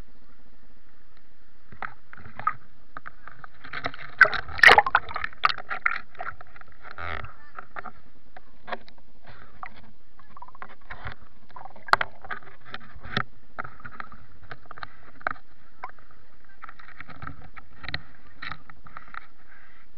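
Water splashing and slapping against a small boat on a lake, with irregular knocks and splashes, heaviest about four to six seconds in.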